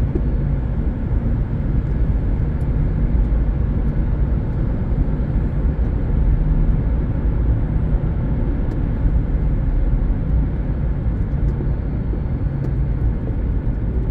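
Steady engine and road noise of a car heard from inside its cabin while driving.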